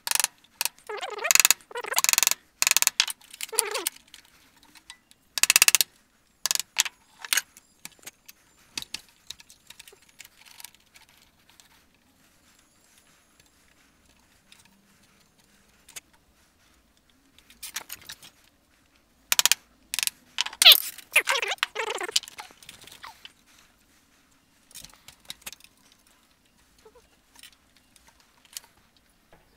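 Hand tools being worked and handled at a woodworking bench: bursts of scraping and knocking with metallic clinks. They come in two busy spells, in the first few seconds and again about 18 seconds in, with scattered small clicks between.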